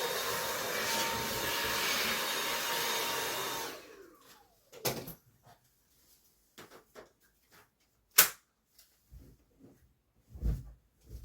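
Dyson vacuum cleaner running with a steady whine, then switched off about four seconds in, its motor winding down in falling pitch. Scattered clicks and knocks follow, with one sharp click near the end and a couple of dull thuds.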